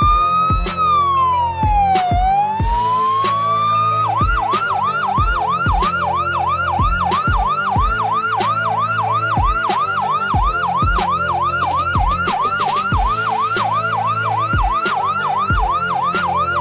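Toy ambulance's electronic siren: a slow wail falling and rising once, then about four seconds in switching to a fast yelp of about three sweeps a second that goes on steadily. Background music with a steady beat runs underneath.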